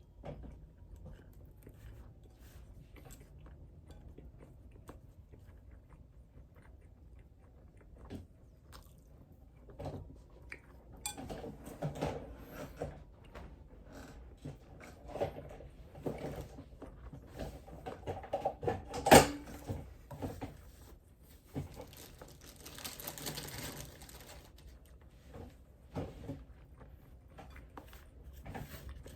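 A person chewing and munching food, with scattered small clicks and knocks of eating and one sharp, loud clack about two-thirds of the way through.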